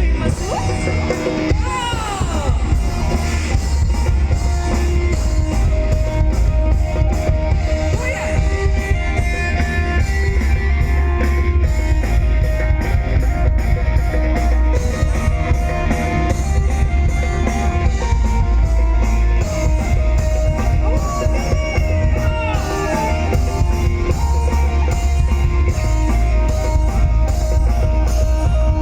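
A rock band playing live, loud and steady, with a pounding drum kit, heavy bass and electric guitar.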